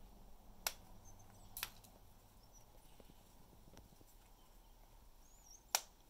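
Parrot's beak snapping and cracking the wooden pieces of a hanging chew toy: three sharp cracks, one about half a second in, a doubled one about a second later, and the loudest near the end.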